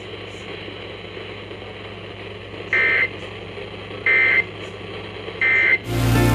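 Emergency Alert System end-of-message code: three short, shrill digital data bursts about a second and a half apart, marking the end of the alert broadcast, over a faint hiss. Just before the end a loud steady buzzing hum starts abruptly.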